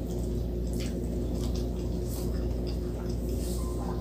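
Chewing and wet mouth sounds of a person eating fried frog and rice: soft clicks and squishes every so often, over a steady low hum.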